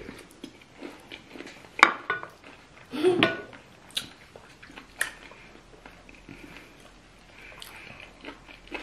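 Eating at a table: chewing on chicken feet and rice, with scattered clicks and clinks of a spoon against glass dishes; the sharpest click comes a little under two seconds in and a short cluster of knocks around three seconds.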